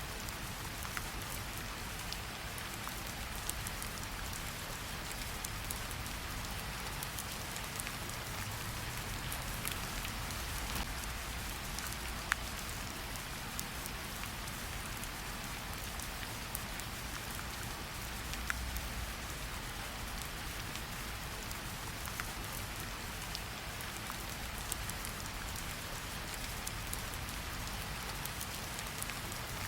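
Steady rain falling, with scattered single drops ticking against a window.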